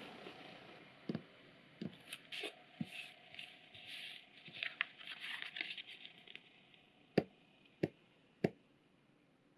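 A paper pattern rustling and sliding over leather as it is lined up, with small taps and clicks. Near the end come three sharp clicks about two-thirds of a second apart as an awl pricks marks through the pattern into the leather.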